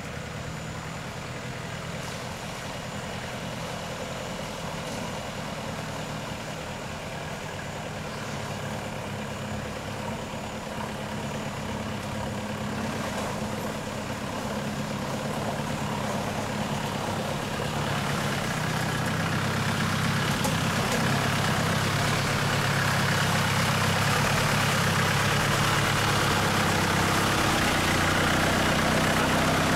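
Lifted pickup truck's engine running as it wades through a creek, growing steadily louder as it comes closer, with water splashing around its big tyres in the last seconds.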